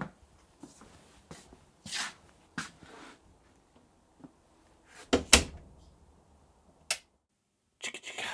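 Footsteps walking off across the workshop floor, then a door shutting with a heavy double thud about five seconds in. Near the end comes a single sharp click as the workshop light switch goes off.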